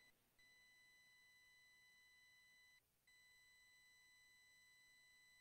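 Near silence, with a faint, steady, high electronic tone that drops out briefly about every two and a half seconds.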